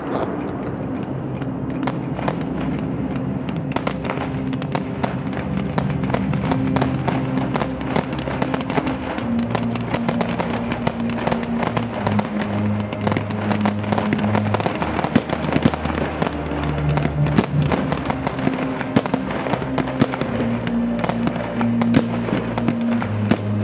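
Fireworks crackling in a dense, continuous run of small sharp pops, with music and its low bass notes playing underneath.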